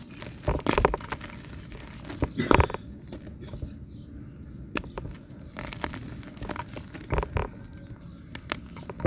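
A hard, dried block of yellow dirt texture being broken and crumbled by hand: irregular cracks and crunches, the loudest about half a second in, two and a half seconds in, and seven seconds in.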